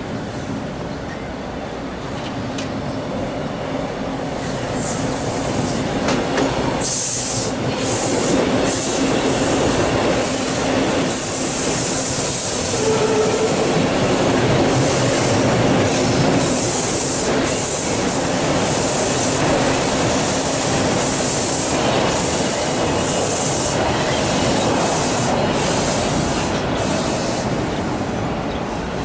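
Two TTC T1 subway trains passing each other, wheels clacking and squealing over the track crossover. The rumble builds over the first few seconds, runs loud with repeated high squeals through the middle, and eases near the end.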